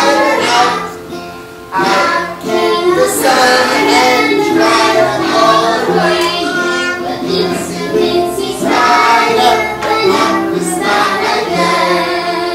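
A class of young children singing a nursery song together as a group.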